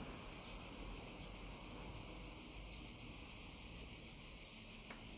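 Quiet, steady high-pitched background hiss with one faint click near the end; no clear sound from the stitching itself.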